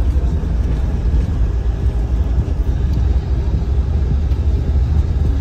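Steady low rumble of a moving bus, engine and road noise heard from inside the passenger cabin.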